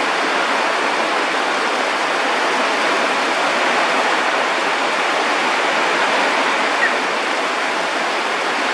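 Heavy rain pouring down through palm fronds and tree foliage: a dense, steady hiss of rainfall.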